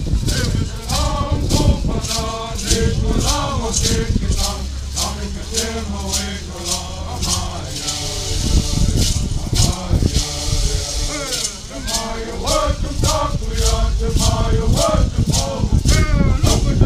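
Traditional Cupeño (Kupa) song: voices singing over a hand rattle shaken in a steady beat, a little over two shakes a second.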